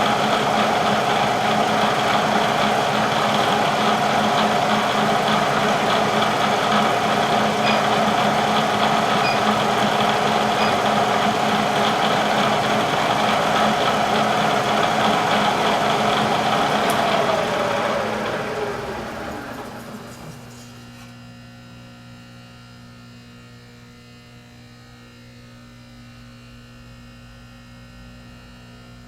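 Bridgeport milling machine spindle running steadily, then switched off about 17 seconds in and spinning down, its whine falling in pitch over about three seconds. A quieter steady electrical hum remains afterwards.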